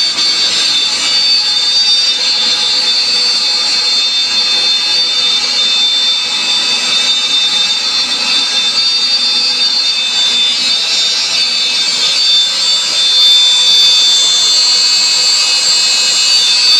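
CNC router spindle running at high speed with a steady high-pitched whine while its bit cuts through 18 mm plywood, the cutting noise growing a little louder about thirteen seconds in.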